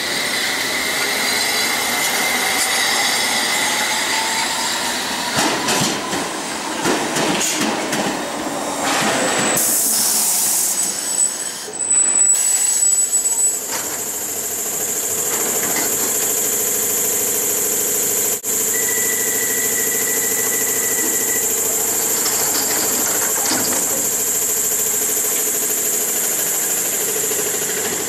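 London Underground S Stock train pulling away: its traction motors whine, one tone rising in pitch as it speeds up. Around ten to thirteen seconds in there is a loud high squeal. After that comes a steady high whine and a lower hum from a C Stock train standing at the platform, with a short beep about twenty seconds in.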